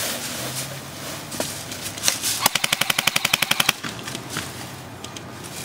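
Airsoft electric gun firing one full-auto burst of a little over a second, a fast even stream of about 15 shots a second. A few single clicks come before it.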